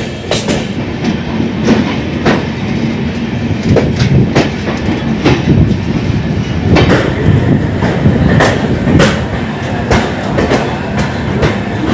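Passenger coach of the 12523 New Jalpaiguri–New Delhi express running into a station, heard from on board: a steady rumble with irregular sharp clacks as the wheels cross rail joints and points.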